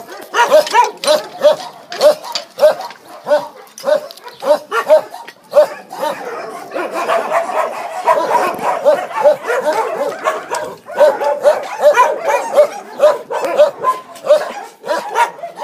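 Many sanctuary dogs barking at once, a dense run of overlapping barks several a second, thickest in the middle.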